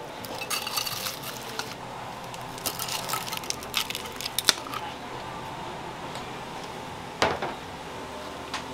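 Metal tongs and a turner clicking and scraping against ceramic plates as grilled fish is plated, in scattered clinks with the sharpest one about four and a half seconds in and another knock about seven seconds in. A steady kitchen hum runs underneath.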